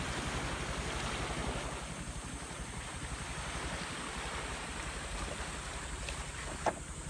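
A boat at sea: a steady low engine hum under a rush of wind and water, with one sharp click near the end.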